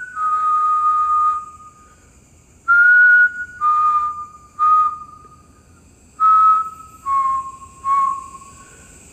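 A man whistling a slow, simple tune through pursed lips: long held notes in short phrases, each phrase stepping down in pitch, with short pauses between them.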